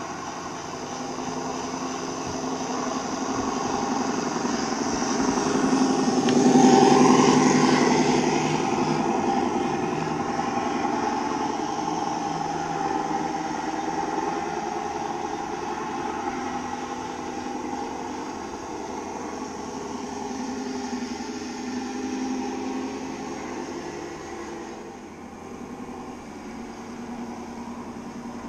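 Radio-controlled model Scania tipper truck driving past with a steady engine-like running hum, growing louder to its loudest about seven seconds in as it passes close, then easing off as it drives away.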